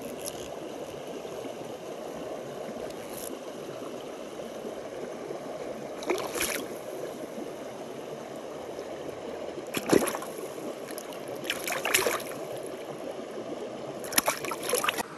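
Steady rushing of a flowing mountain stream, broken by a few short sharp noises: one about six seconds in, the loudest about ten seconds in, more around twelve seconds and a cluster near the end.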